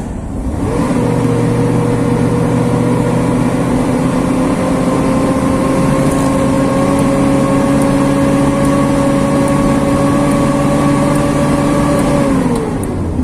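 Vehicle engine heard from inside the cab, pulling under acceleration. Its note rises slowly and evenly for about eleven seconds, then drops near the end as the throttle eases or a gear changes.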